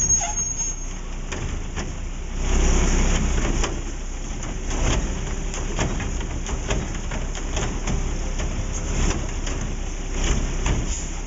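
Garbage truck engine running under hydraulic load, speeding up about two and a half seconds in, with repeated knocks and clanks as the Curotto Can's automated arm lifts and tips a plastic Poly Kart.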